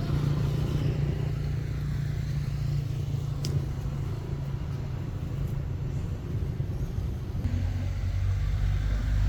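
Steady low rumble with a low hum.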